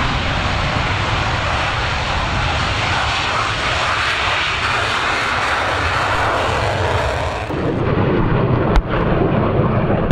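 F-16 fighter jet's engine in afterburner on the takeoff roll: a loud, steady rush of jet noise. About three quarters of the way through, the sound turns abruptly deeper and duller, with one sharp click shortly after.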